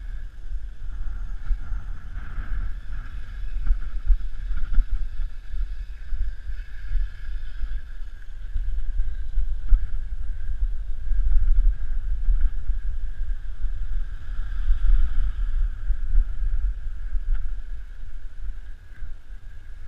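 Wind buffeting the microphone of a bike-mounted action camera on a fast road-bike descent, a constant low fluttering rumble, with a steady higher hiss of tyres on wet tarmac.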